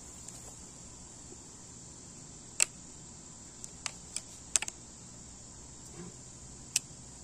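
Scattered sharp metallic clicks and taps, about eight in all, as a steel lawnmower blade is handled and held against the mower's old blade; the loudest comes about two and a half seconds in and a quick cluster of three follows a couple of seconds later. A steady high insect buzz runs underneath.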